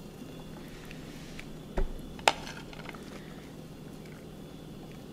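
Quiet kitchen handling while shredded cheese is scattered by hand over a lasagna in a glass baking dish: a dull thump a little under two seconds in and a sharp click about half a second later, over a low steady hum.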